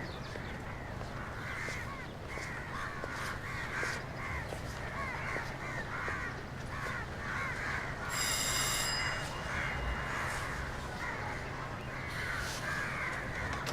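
Outdoor street ambience dominated by birds calling over and over, about twice a second, over a steady low hum. A brief high ringing sound, like a bell, cuts in about eight seconds in.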